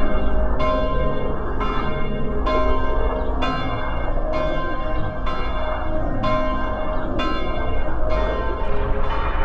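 Bell-like metallic strikes at an even pace of about one a second, each ringing on with several pitches, over a steady low rumble.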